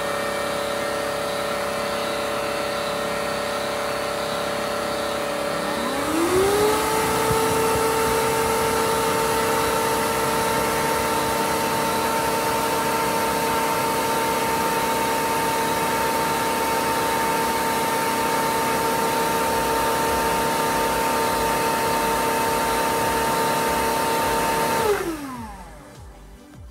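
Bissell CrossWave Cordless Max wet-dry vacuum running its self-cleaning cycle, the motor and brush roll spinning in the base tray with a steady whine. About six seconds in it speeds up, its pitch rising quickly to a higher, louder whine that holds steady. Near the end it winds down and stops.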